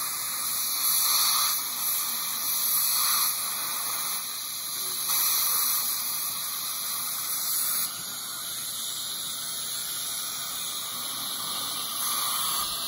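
Dental suction hissing steadily, with a few louder surges in the first half.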